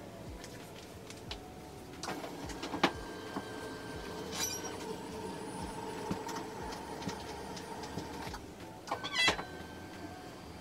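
Newborn baby fussing with two short, wavering squeaks, about four and a half seconds in and again about nine seconds in. Under them is a steady room hum and a few small handling clicks.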